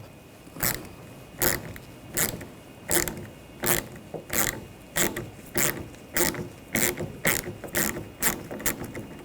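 Socket ratchet on an 8 mm socket clicking as a nut is loosened, in short runs of clicks with each return swing: about one every 0.7 s at first, quickening to about two a second in the second half.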